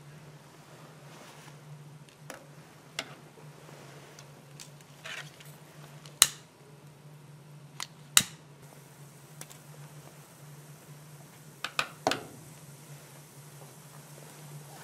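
Sharp clicks and knocks of small hard objects. The two loudest come about six and eight seconds in, and three follow close together near twelve seconds, over a steady low hum.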